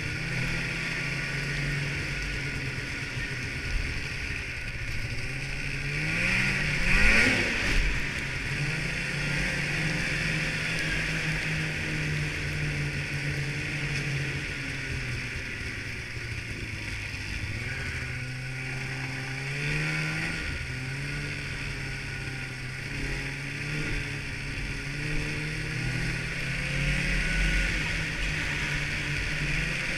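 Snowmobile engine running under way, with a steady hiss alongside. The engine revs up about seven seconds in, the loudest moment, and its pitch rises again around eighteen to twenty seconds.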